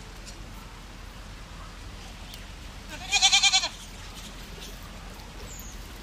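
A goat kid bleating once, a short, high, quavering bleat about three seconds in.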